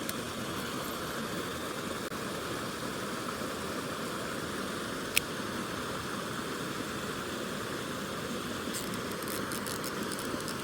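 Mountain stream water running steadily, an even rushing noise, with one sharp click about five seconds in.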